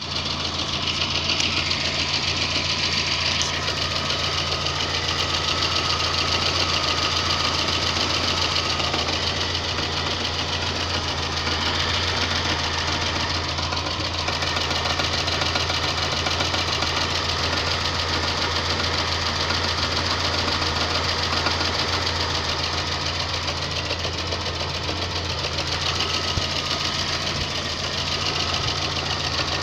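VAZ-2110 engine running steadily at warm idle with a knock. The cause of the knock is unknown to the owner.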